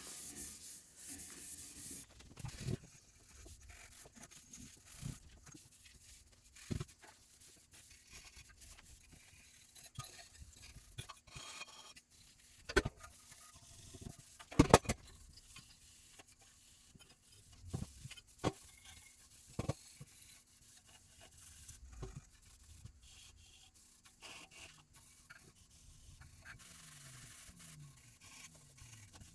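Scotch-Brite scuff pad rubbed by hand over the mini bike's painted frame, scuffing the finish so primer will stick. There is a brief scrubbing at first, then faint intermittent rubbing with scattered knocks and clicks.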